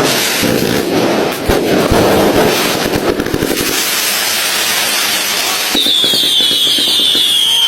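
Fireworks going off: dense crackling with several sharp bangs over the first few seconds, then a high whistle sliding slowly downward near the end.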